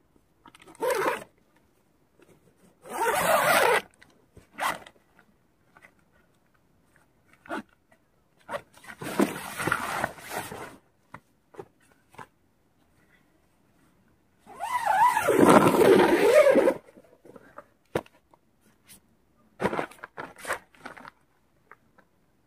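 Zipper of a Quechua dome tent pulled in several separate strokes, each a second or two long, mixed with rustling of the tent's nylon fabric.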